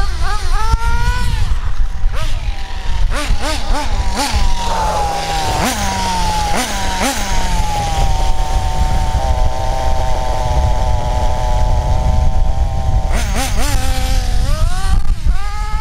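Kyosho DBX 2.0 buggy's .18 nitro engine, warmed up, revved in several quick bursts as the buggy is brought back, then idling steadily for about five seconds while its high-speed needle is leaned an eighth of a turn, and revving up again near the end as it pulls away.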